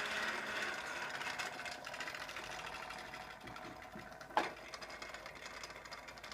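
A child's push toy lawnmower being rolled, its mechanism making a fast, even clatter that slowly fades. There is one sharp click about four seconds in.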